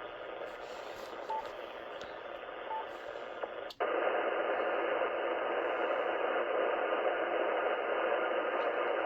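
Ham radio receiver's speaker hissing with band noise through its narrow voice filter. About four seconds in it cuts out for an instant and comes back louder and steadier.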